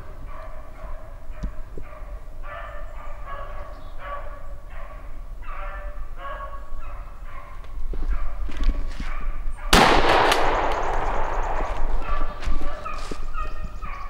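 Beagles baying on a rabbit's trail in a run of short, repeated calls. About ten seconds in, a single 12-gauge shotgun blast, the loudest sound, rings out briefly before the baying carries on.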